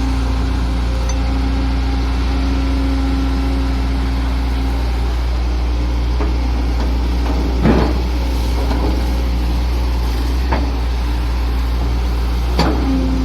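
Hydraulic excavator's diesel engine running steadily with a low drone, a steady whine over it for the first five seconds or so. Three short sharp knocks come near the end, the kind of clank the bucket or boom makes while digging.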